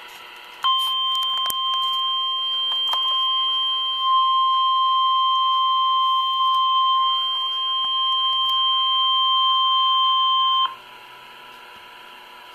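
NOAA Weather Radio warning alarm tone: a single steady 1050 Hz beep held for about ten seconds, then cut off. It signals that a warning message follows. Faint radio hiss and a few crackles of static lie under it.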